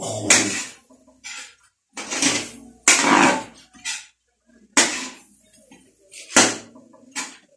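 Metal spatula scraping and knocking against a large wok while stir-frying rice, in a run of irregular scrapes about a second apart.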